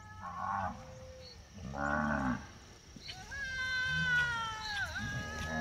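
Nelore cattle mooing: two short, low moos, then a long, higher-pitched bawl from about three seconds in that dips in pitch as it ends, with another call starting near the end.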